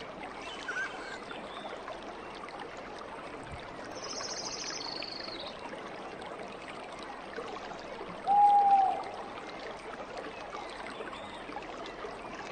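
Steady running water with a few bird calls over it: a high, slightly falling trill about a third of the way in, and a louder short whistle a little past the middle.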